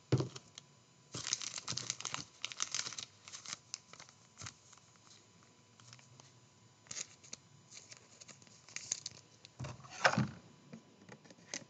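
Trading cards and foil pack wrappers being handled: quiet, intermittent rustling and crinkling in short clusters, with a louder rustle about ten seconds in.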